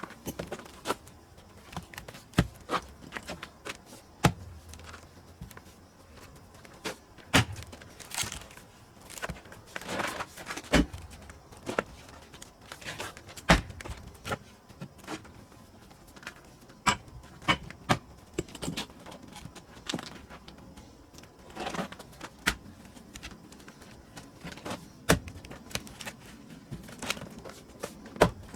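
Pine firewood being split and knocked about: a string of sharp wooden knocks and cracks at irregular intervals of one to three seconds, with softer scuffs and rustles between them.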